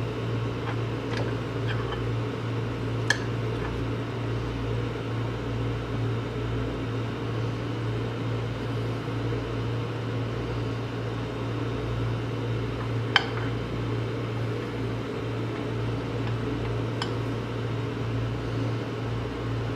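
Microwave oven running with a steady low hum, broken by three brief sharp ticks spread through the run.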